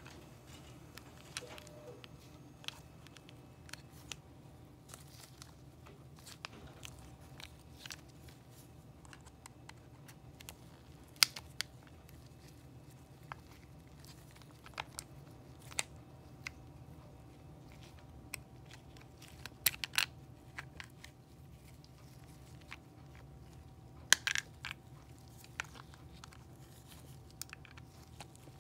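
Scattered small clicks and taps of plastic and metal parts as the pistons of a Gilson PIPETMAN L multichannel pipette are seated back into its opened housing by hand, with a few sharper clicks among them. A faint steady hum runs underneath.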